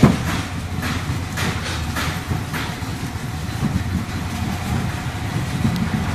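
Gold-ore processing machinery running, chiefly a JXSC wet pan mill grinding ore in water with its rollers: a steady low mechanical rumble with a few brief knocks in the first half.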